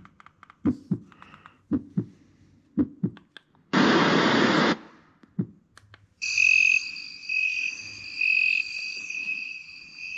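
Small sound machine playing a heartbeat track: paired low thumps about once a second. About four seconds in comes a one-second burst of hiss, and after about six seconds the machine changes to a steady, high, pulsing chirring track.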